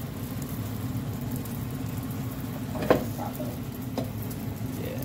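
Roti cooking on a hot griddle with a steady sizzle over a low, even hum. A sharp tap comes about three seconds in and a lighter one about a second later.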